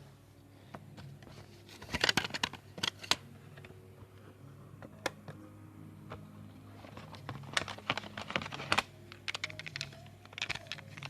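Plastic clicks and clacks of a cassette tape being handled, coming in several short clusters over a low steady hum.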